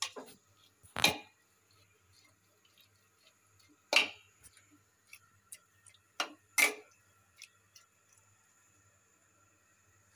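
Metal spoon stirring bottle gourd leaves in water in an aluminium pressure cooker pot, knocking against the pot's side about four times, with softer clinks in between.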